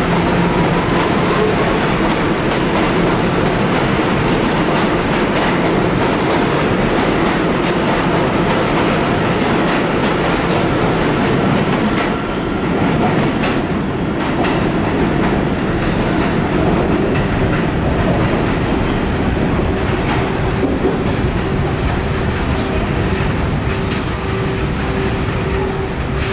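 Kawasaki R211A subway cars rolling through an elevated station, their wheels clicking over rail joints with a continuous rumble. About halfway through the scene changes to another R211A train pulling away along the elevated track, with a steady tone held over the rumble.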